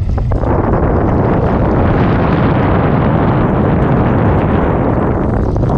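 Wind buffeting the microphone over a boat's motor running, a loud, steady noise heavy in the low end.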